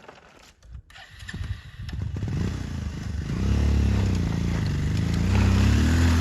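Motorcycle engine starting to rev about a second in and growing louder, its pitch rising and falling as the throttle is worked.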